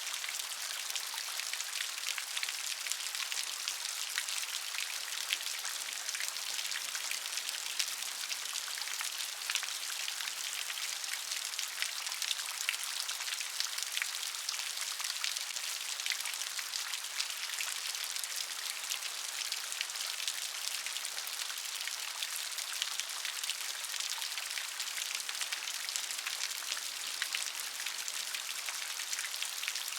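Steady rain with dense, fine drop patter on a surface, a continuous high-pitched hiss that does not let up.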